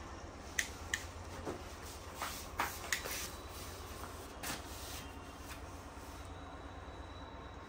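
Handling noise of objects being moved about: a handful of light knocks and rubs over the first few seconds, then only a steady low hum.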